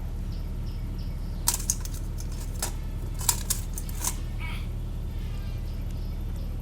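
Sharp metallic clicks and clinks of small alternator parts, a washer among them, being handled and fitted during reassembly, in a few clusters over a steady low hum.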